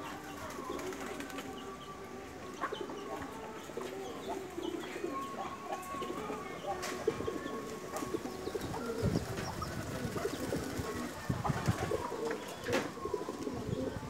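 Domestic pigeons cooing over and over, low throaty coos overlapping one another, with a few sharp clicks.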